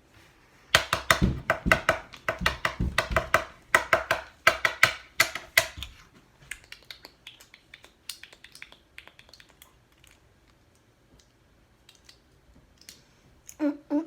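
LEGO plastic pieces clattering and clicking, as when they are rummaged through or snapped together. There is a dense run of rapid, loud clicks for about five seconds, then sparser, fainter clicks.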